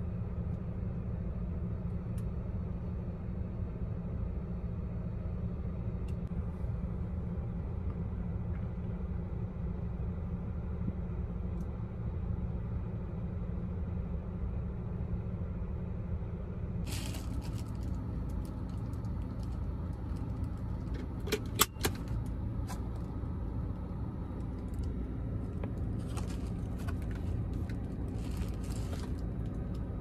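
Steady low hum in the car's cabin. From about 17 seconds in, a metal seatbelt buckle extender rattles and clicks as it is handled, with one sharp click a little after 21 seconds as it latches into the seat's belt buckle.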